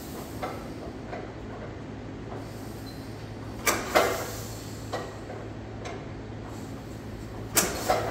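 Antique crawler tractor's engine running steadily with a low rumble, with two pairs of sharp metallic clanks, one pair about halfway through and another near the end.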